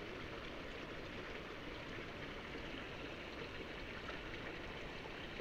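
Steady, even rush of running water in a stream-fed concrete fish pond.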